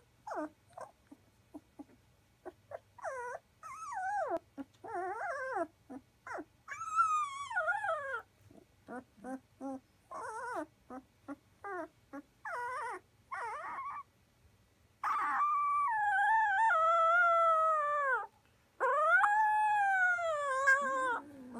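Two-week-old Llewellin setter puppies whimpering and squealing in many short, pitch-bending cries. Two longer cries about fifteen and nineteen seconds in slide down in pitch and are the loudest.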